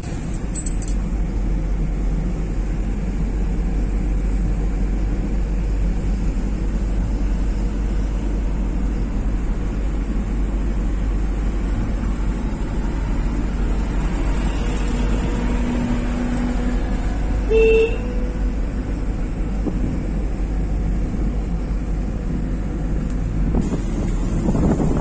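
Steady engine and road noise inside a moving car's cabin. About two-thirds of the way through, a short vehicle horn toot is the loudest moment.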